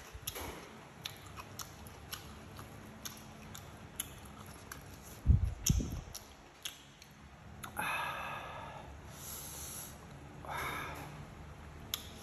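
Close-up eating sounds: small wet mouth clicks while chewing fried egg, with a few soft low thumps about five seconds in. Two sniffs through the nose come about eight seconds in and again near eleven.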